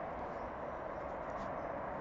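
Steady, distant rumble of a train approaching along the main line.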